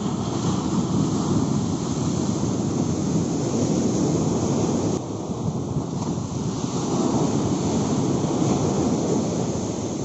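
Sea surf breaking and washing up a sandy beach in a steady, dense rush, with wind rumbling on the microphone.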